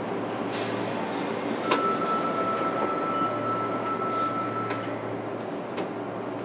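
Inside a JR Kyushu 103 series 1500-subseries electric train car: a steady low hum, then a burst of air hiss about half a second in, a sharp clank, and a steady high tone that holds for about three seconds. A few lighter clicks follow.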